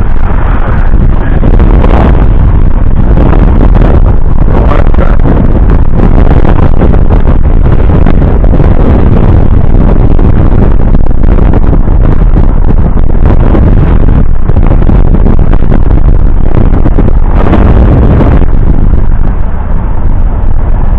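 Loud, steady wind buffeting on the microphone of a camera held out of a moving car's window, with the car's road noise underneath.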